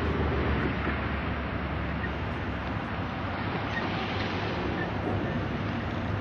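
SM31 diesel shunting locomotive's engine running steadily at close range, a low diesel hum under a dense, harsh mechanical noise.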